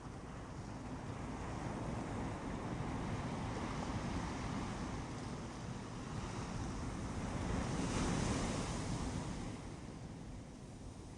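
Ocean surf on a beach: waves washing in, swelling to a loudest breaking wave about eight seconds in, then dying back.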